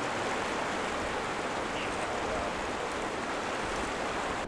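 The Rio Grande running over boulders and riffles: a steady, even rush of flowing water.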